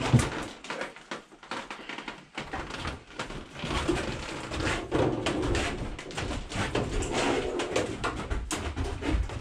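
A sheet-metal subcompact tractor cab being lifted by hand onto the tractor's frame: a sharp knock at the start, then repeated knocking and rattling of the cab's panels and frame as it is carried and set down.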